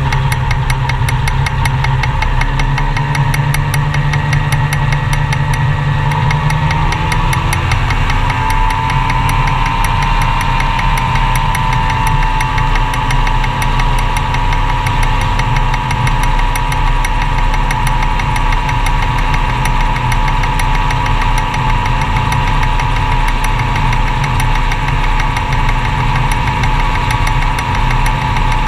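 Magni M-22 Voyager gyroplane engine running steadily, its pitch shifting up slightly about seven or eight seconds in.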